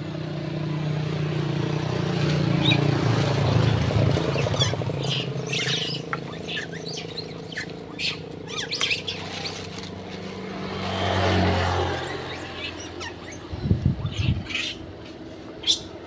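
A vehicle passes on the road, its engine swelling and fading over the first few seconds, and a second one passes near the middle. In between and near the end, long-tailed macaques give short, high squeaks and chirps, with a few low thumps about three-quarters of the way in.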